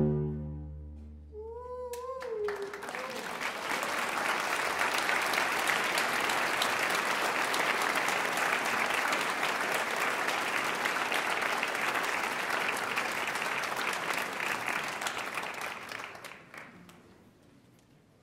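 The final chord of a cello and double bass duo dies away, a brief wavering call rises from the audience, and then the audience applauds steadily for about fourteen seconds before the clapping fades out near the end.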